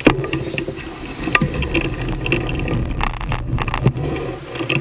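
Handcycle rolling along a road, its frame and cables rattling, with several sharp clicks over a steady low rumble.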